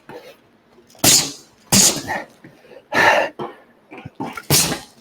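Four short, forceful exhales hissed out by a boxer, one with each punch thrown.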